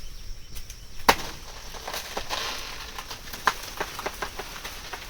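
A blade chopping at a banana plant's stalk: a series of irregular sharp strikes, the loudest about a second in.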